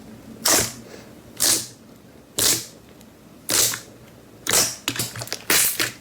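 Slime being pressed and squeezed, giving a crackling squish about once a second, with a quicker run of squishes near the end.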